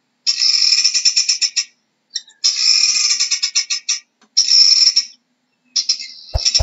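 Helmeted guinea fowl calling: repeated bouts of rapid, chattering pulses, each bout a second or two long, separated by short pauses.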